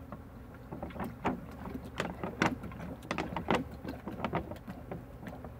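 Sugar syrup glugging out of an upturned plastic bottle as it is poured into a beehive feeder, in a run of irregular gurgles and pops. A steady hum of honey bees runs underneath.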